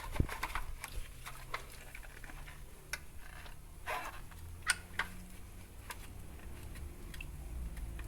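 Scattered light clicks and taps, irregular and a few a second, from parts of a washing machine being handled and cleaned by hand.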